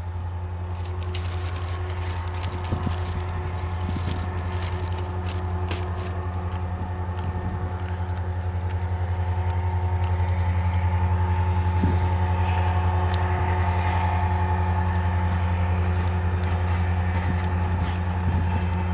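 Diesel engines of an approaching CSX freight train's locomotives, an EMD SD70MAC leading a GE ET44AC, make a low steady drone that grows gradually louder. Scattered sharp clicks fall in the first few seconds.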